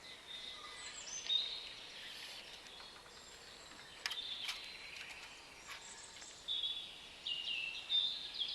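Birds singing in woodland: short high chirps and whistled phrases, with a couple of sharp clicks about four and a half seconds in.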